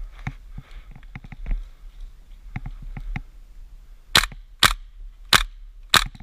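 Airsoft gun firing four sharp single shots, roughly half a second to a second apart, in the second half. Lighter clicks and knocks come before them.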